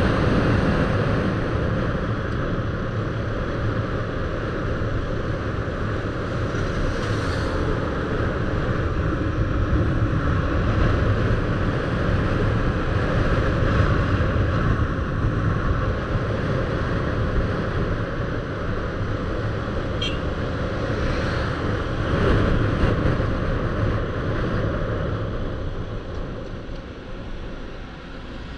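Motorbike engine running with wind and road noise while riding, getting quieter near the end.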